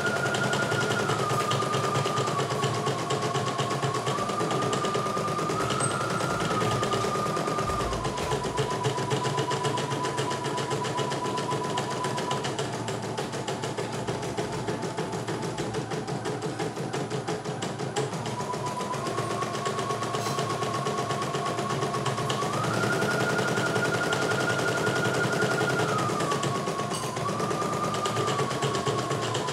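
CNY E900 portable embroidery machine stitching a design: fast, even needle clatter over a motor whine that steps up and down in pitch several times as the stitching speed changes.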